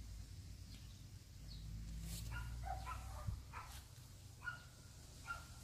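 Faint, short animal calls, about half a dozen spread over the second half, over a low rumble of wind on the microphone.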